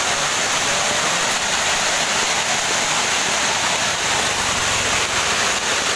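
Heavy hail mixed with rain coming down in a dense, steady hiss, the hailstones likened to gravel.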